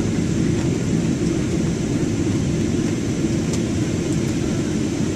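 Steady low rumble of a jet airliner's engines and airflow, heard inside the cabin in flight after takeoff.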